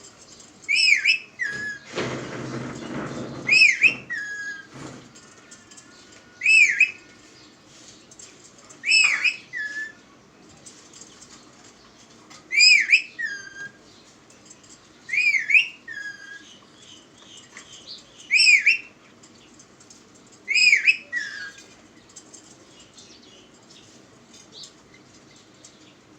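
Pet parrot giving loud, short, whistly calls about every two to three seconds, each a swooping note with a short lower note after it. A brief rustling noise comes about two seconds in.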